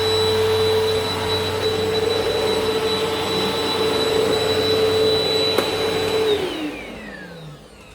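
WAP Power Speed 2-in-1 upright vacuum cleaner, a 2000 W corded machine, running with a steady motor whine. About six seconds in it is switched off and the whine falls in pitch as the motor spins down.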